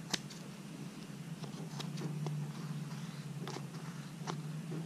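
Scissors snipping through double-sided tape as it is trimmed around a plastic clamp: several sharp little snips at uneven intervals, over a low steady hum.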